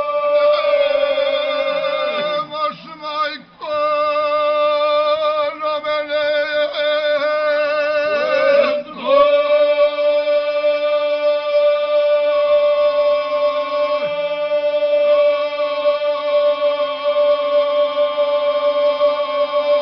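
Male folk vocal group singing together without instruments, in long held, slightly wavering notes. There are short breaks for breath about three seconds in and again near the middle, then one long sustained chord to the end.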